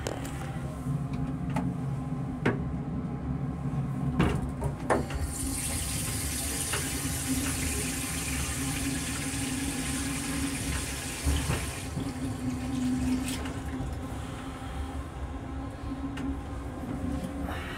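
M7 railcar toilet flushing: a rush of blue flush fluid hisses through the stainless-steel bowl for about six seconds, preceded by a few sharp clicks. Underneath is the railcar's steady low hum.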